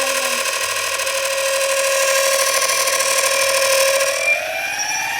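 Dual electric motors of a LiftBoard electric skateboard whining at a steady pitch, then rising in pitch about four seconds in as they speed up. This is the weird noise from the motors.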